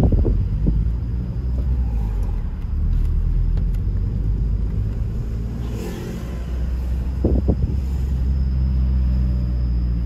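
Car driving, heard from inside the cabin: a steady low engine and road rumble, with a few short thumps at the start and a pair of thumps about seven seconds in.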